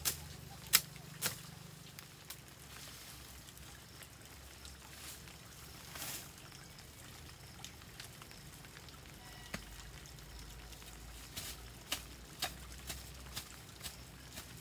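Dry wooden sticks knocking and snapping as they are handled, sharp clicks about two a second at the start and again in the last few seconds, with faint garden rustling in between.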